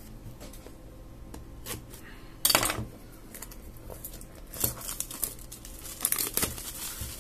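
Clear plastic shrink-wrap being torn and peeled off a cardboard phone box. There is one sharp rip about two and a half seconds in, then crinkling of the film with small clicks.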